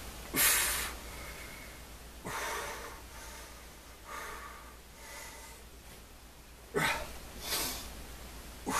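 A man's heavy, forceful breathing from exertion during a workout: about six sharp, hissy breaths in and out, the loudest right at the start.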